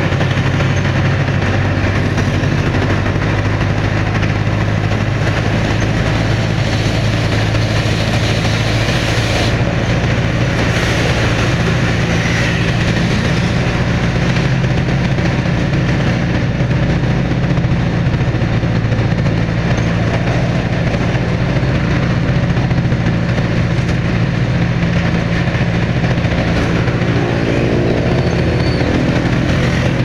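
Old Jeep's engine running steadily on the move, a constant low drone heard from on board, with road and wind noise.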